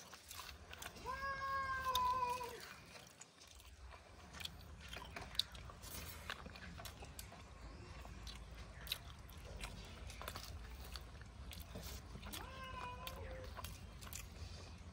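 A domestic cat meowing twice: one long meow about a second in and a shorter one near the end, with faint clicks of eating in between.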